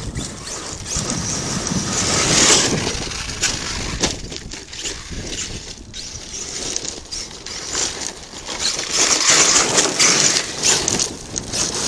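ARRMA Kraton 8S RC monster truck driving over loose dirt and gravel, its tyres crunching and scattering stones. It swells louder twice, a couple of seconds in and again near the end.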